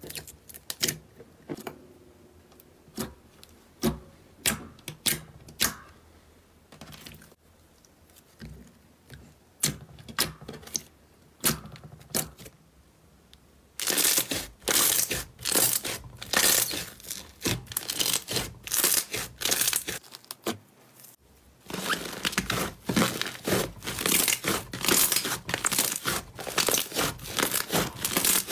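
Slime being played with by hand. First come sparse sticky pops and clicks as fingers press into clear jelly slime. From about halfway, thick white slime being squeezed and stretched gives a dense crackling and tearing.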